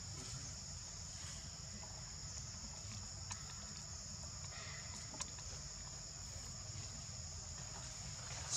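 A steady, high-pitched chorus of insects droning without a break, over a low rumble, with a couple of faint clicks in the middle.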